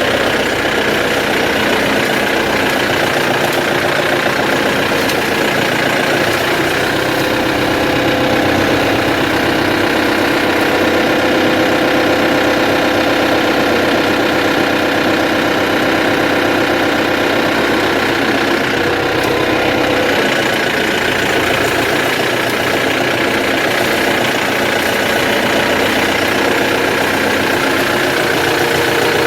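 Tractor engine idling close by, a steady running sound, its speed lifting slightly for several seconds in the middle before settling back.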